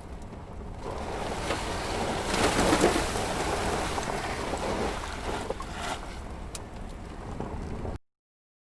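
Steady rushing noise, like wind or surf, swelling to its loudest about three seconds in, then cutting off suddenly to silence near the end.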